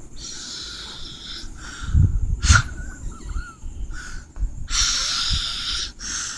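Snoring: long hissing breaths, with a low rattling snort about two seconds in.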